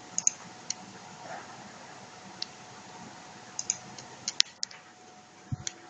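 Irregular sharp clicks and taps from working a laptop's controls, about a dozen spread unevenly, the loudest about four and a half seconds in, with a short dull thump near the end.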